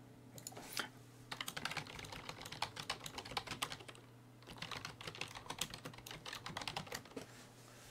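Typing on a computer keyboard: a couple of single clicks, then two quick runs of keystrokes with a short pause between them, over a low steady hum.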